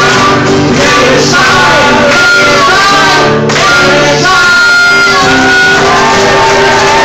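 Loud live pop music played through PA speakers: a man singing over guitar and backing, with shouting mixed in.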